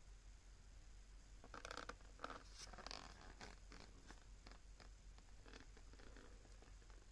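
Faint crinkling and scratching of plastic food packaging being handled, busiest for a couple of seconds near the start, then a few scattered light clicks.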